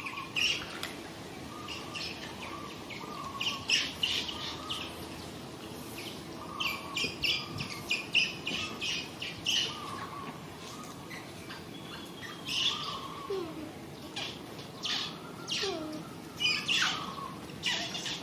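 High-pitched animal chirps and squeaks coming in quick runs, with a few short falling calls in the second half.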